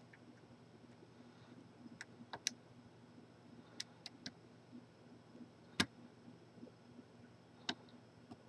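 Lock-picking tools clicking in a large Corbin padlock as it is being picked: scattered sharp clicks, about nine in all, the loudest about six seconds in.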